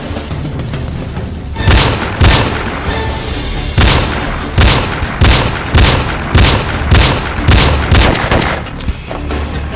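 A string of about ten sharp, loud gunshot sound effects, two single shots and then a steady run of about one every half second, over background music.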